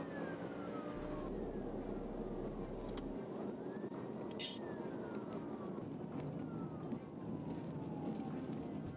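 Police siren wailing in slow rising and falling sweeps, heard muffled from inside a pursuing patrol car over steady road and engine noise at highway speed. A short click sounds about three seconds in.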